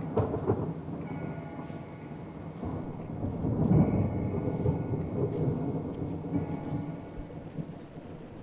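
A long roll of thunder over rain, swelling to its loudest about four seconds in and then dying away. Faint high held tones come and go behind it.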